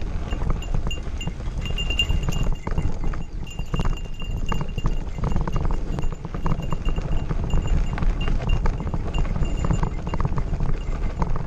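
Mountain bike rattling and clattering over a rough gravel forest road, with a steady low rumble of wind on the microphone.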